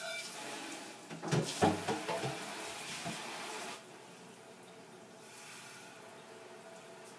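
Kitchen tap running into the sink while dishes are washed, with dishes and utensils knocking and clattering in the basin for a couple of seconds. The running water stops about four seconds in, leaving a fainter hiss.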